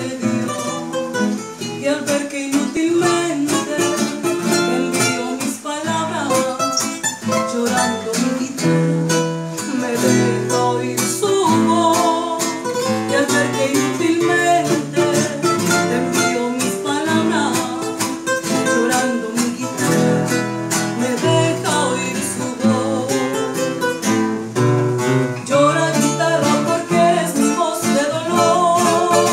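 A woman singing a song, accompanied live by plucked acoustic guitars.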